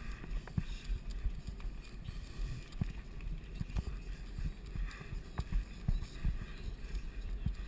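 Cross-country mountain bike rolling over a dirt forest trail: a low rumble from the ride, with irregular clicks and knocks as the bike rattles over the bumpy ground.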